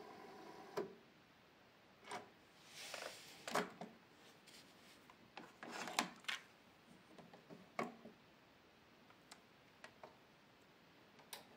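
Cassette deck being handled: a steady hum stops with a sharp click about a second in, followed by scattered clicks and short rubbing and scraping sounds.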